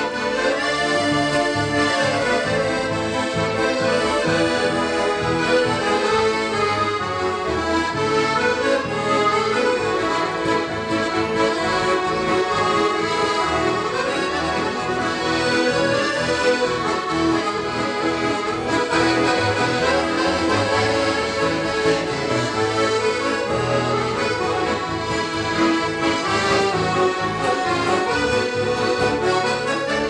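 Piano accordions playing an instrumental tune together, with a rhythmic bass line under the melody and no break.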